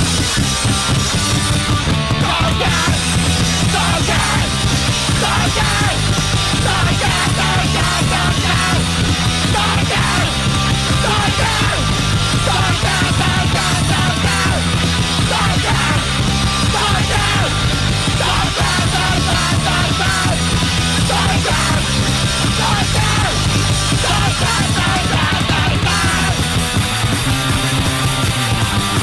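Loud punk rock song played by a full band, with electric guitars, bass and drums and a bass line stepping through a repeating riff.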